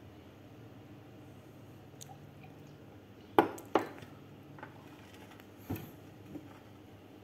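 Glassware set down on a glass tabletop: two sharp clinks about a third of a second apart as the glass coffee server is put down, then a softer knock about two seconds later as a drinking glass is set beside it.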